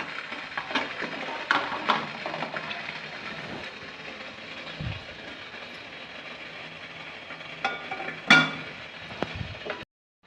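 Pot of water at a rolling boil with steam hissing steadily, with a few clicks and clatters of metal cookware, the loudest about eight seconds in. The sound cuts off abruptly just before the end.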